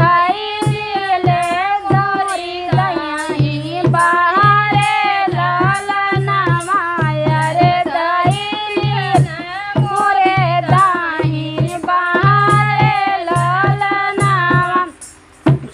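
Two women singing a Bhojpuri wedding folk song (vivah lalna geet) together, over a steady drum beat of about two strokes a second. Song and drum break off briefly near the end.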